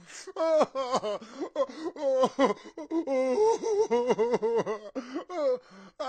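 A man sobbing: a quick run of short, broken sobs with catching breaths between them.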